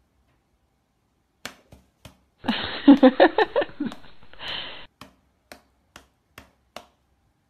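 Short, sharp slaps of a cat's paw batting against a person's open hand, a few early on and then about twice a second near the end. In the middle, for about two seconds, the loudest sound is a muffled voice in quick rhythmic pulses.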